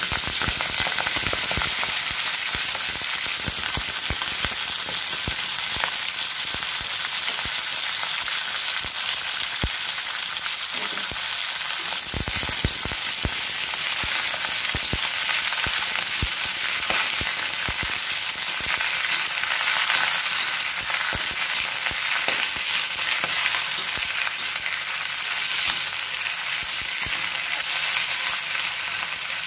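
Sawi (choy sum) greens sizzling loudly in hot oil in a metal wok, just dropped in and being stir-fried. The spatula makes frequent short scrapes and knocks against the wok.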